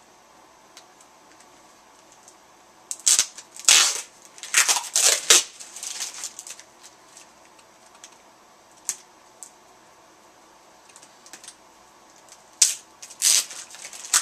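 Mail packaging being handled and opened by hand: quick bursts of rustling and ripping, a cluster of them about three seconds in and two more near the end, with faint ticks and light handling in between.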